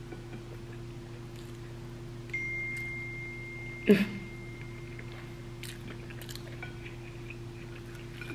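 A person quietly chewing a mouthful of breakfast burrito over a steady low hum. A clear high ringing tone starts about two seconds in and fades over a couple of seconds. A brief loud muffled sound comes just before the four-second mark.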